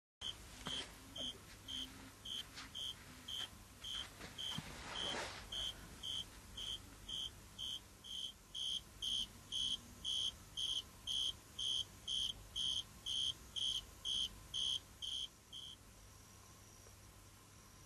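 Male Oecanthus henryi tree cricket calling: a steady series of short, high, pure-toned chirps, about two a second, growing clearly louder about halfway through and stopping a couple of seconds before the end. Faint scratchy rustles are heard during the first few seconds.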